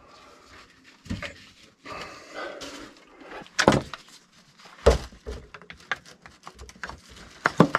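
Plumbing hand tools and pipe fittings being handled: scattered sharp knocks and clanks, the two loudest a little past the middle, with rustling in between.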